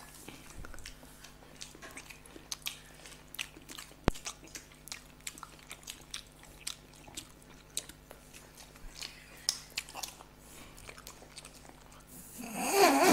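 Close-up eating sounds of people wolfing down masala-coated hard-boiled eggs: wet chewing, biting and mouth smacks in a run of short, soft clicks, with one sharp click about four seconds in. A voice breaks in loudly near the end.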